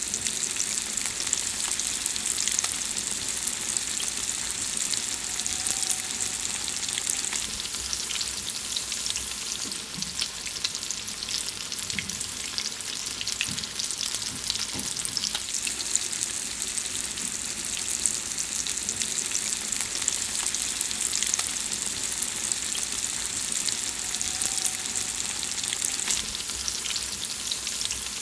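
Food frying in hot fat in a pan: a steady sizzling hiss with dense, irregular crackling and popping.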